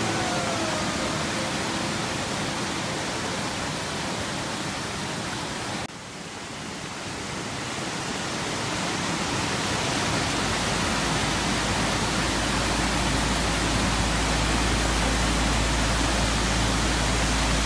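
Waterfall rushing: a steady, even hiss of falling water. It dips briefly about six seconds in and builds back up, and from about ten seconds in a deep low rumble joins it.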